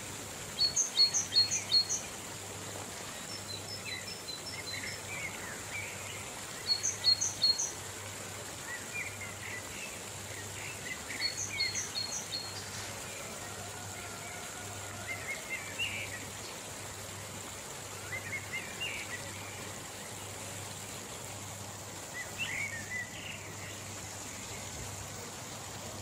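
River water rushing steadily over rocks, with birds singing over it: one bird repeats a short phrase of about four quick high notes several times, the loudest sounds, while other birds chirp on and off throughout.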